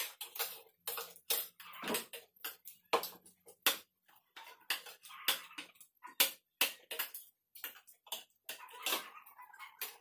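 Spoons and forks clinking and scraping against ceramic plates as several people eat: a quick, irregular run of sharp clicks.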